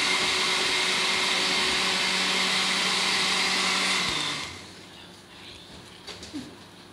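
Electric blender running steadily as it blends a fruit-and-milk shake, then switched off about four seconds in. A few faint clicks follow.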